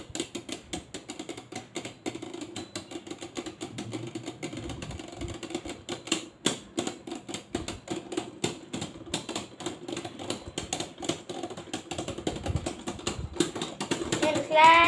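Two Beyblade Burst spinning tops, Dynamite Belial and Vanish Fafnir, spinning together in a plastic stadium. They make a fast, continuous clatter of clicks as they knock against each other, over a steady spinning hum.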